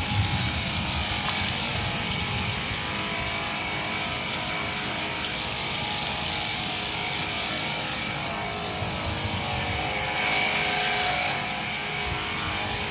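Battery-powered portable pressure washer with its soap attachment fitted, running steadily: an even hiss of spray over the motor and pump's hum of several steady tones.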